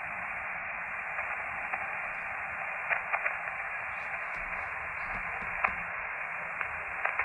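Elecraft KX2 transceiver's speaker giving a steady receiver hiss on a sideband frequency with no station on it, with a few faint crackles.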